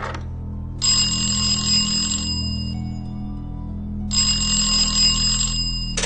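Old black desk telephone's bell ringing twice, each ring about a second and a half, then a click near the end as the handset is picked up, over a low steady music drone.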